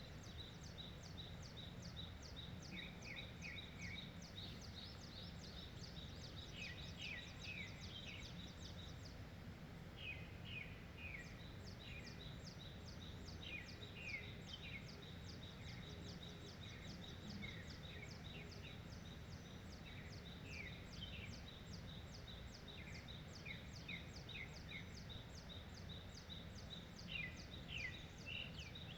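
Songbirds singing and calling: a rapid, evenly repeated high ticking trill runs on and off, with clusters of short downslurred chirps from other birds, over a steady low rumble of wind.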